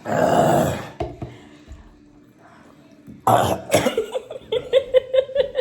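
A person coughs hard, one long harsh cough, while eating spicy hot wings. About three seconds in comes another harsh burst, then a quick run of laughter.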